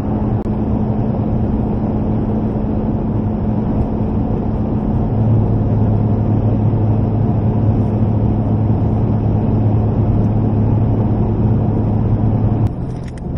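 Motor vehicle running at a steady speed: a constant rumble and hiss with a low drone. A deeper hum joins about five seconds in, and the sound dips near the end.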